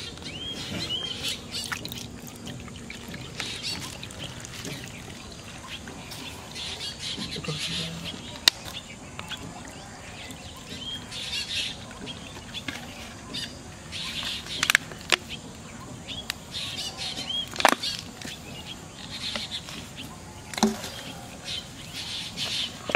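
Scattered bird chirps over a steady outdoor background, with a few sharp clicks and knocks as bait is mixed by hand on a steel plate; the loudest click comes about two-thirds of the way through.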